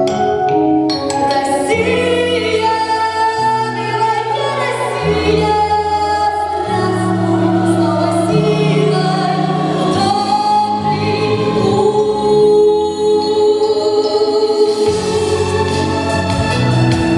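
A song: singing voices with a choir-like sound over held chords and a bass line that moves note by note.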